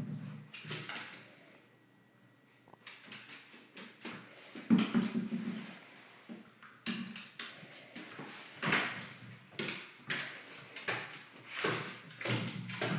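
Border terrier puppy scrambling over a hardwood floor among tennis balls: irregular knocks and thumps of paws and balls on the wood, with a short quiet pause about two seconds in.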